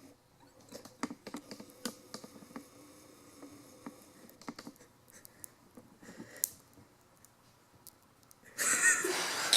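Scattered light clicks and taps as chicken wings are turned over one by one on a foil-lined baking sheet. Near the end comes about a second of loud hissing noise.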